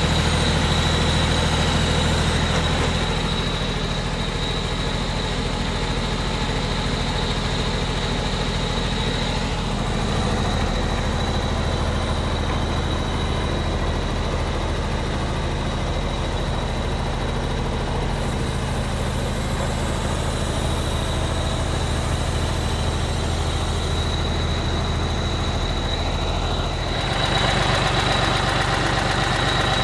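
Vögele Super-Boy asphalt paver's diesel engine running at a steady idle, with a constant high whine over the engine note. The sound shifts a few times and steps louder near the end.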